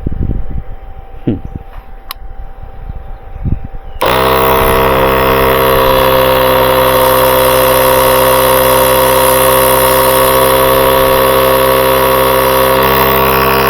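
A few light handling knocks, then about four seconds in the built-in air compressor of a UTRAI Jstar 5 jump pack switches on abruptly and runs with a loud, steady hum.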